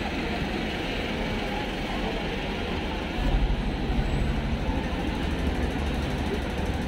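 City street ambience with steady traffic noise. A louder low rumble of a passing vehicle comes in about three seconds in.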